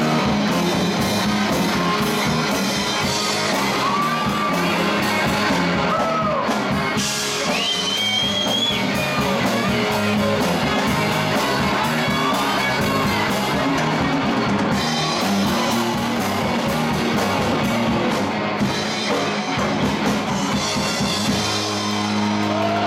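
Live rock band playing, with electric guitar, electric bass and drum kit.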